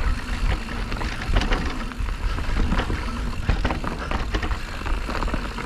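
Electric mountain bike ridden down a rough dirt trail: wind buffeting the microphone, tyres rumbling over the ground and the bike knocking and rattling over bumps, with a faint steady hum underneath.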